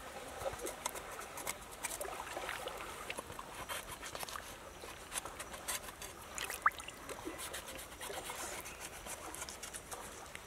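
Shallow stream trickling, with unevenly spaced small clicks and scrapes from a meat cleaver cutting along the edge of a softshell turtle's shell on a rock.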